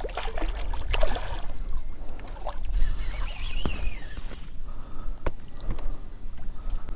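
Water splashing and lapping against a kayak hull, with wind rumbling on the microphone and a few sharp knocks.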